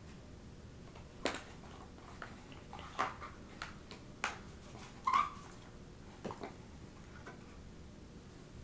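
Handling of embroidery floss and its storage bins and bobbins: scattered light clicks and taps, about one every second or two, with a short squeak about five seconds in.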